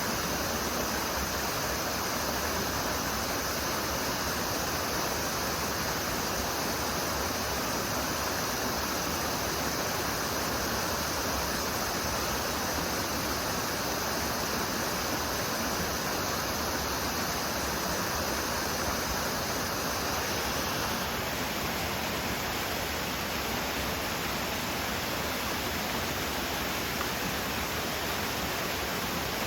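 Gorge stream rushing steadily over rocks, with a chorus of higurashi (evening cicadas) calling high above the water until about two-thirds of the way through, when the calls stop.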